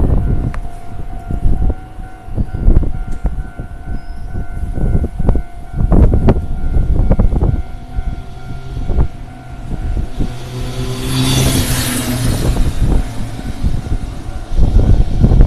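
JR Ome Line train passing over a level crossing: a low rumble with wheels knocking over the rail joints, while the crossing's warning bell rings steadily. About ten seconds in a louder rushing hiss with a low hum swells for a couple of seconds as the train goes by close.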